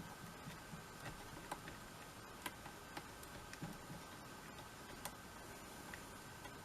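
Faint, irregular light clicks and ticks of hand work at a fly-tying vise, as the tier tidies the fly.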